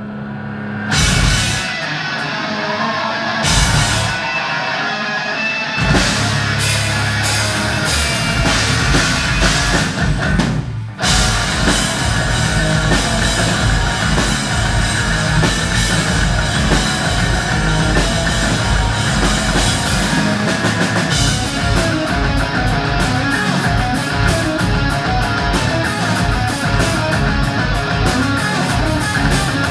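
Live hard-rock band with electric guitars, bass and drum kit, heard through the hall PA. It opens with a held note and a few separate full-band hits, then plays continuously and loudly, with a short break about eleven seconds in.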